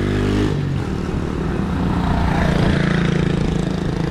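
Motorbike engine running close by as it overtakes, over steady road and wind noise.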